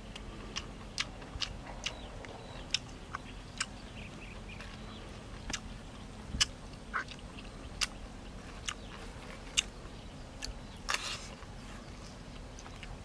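A person eating and chewing, with sharp wet mouth clicks and lip smacks at irregular intervals.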